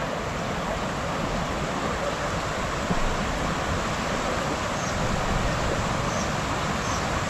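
Floodwater flowing strongly across a road: a steady rushing noise.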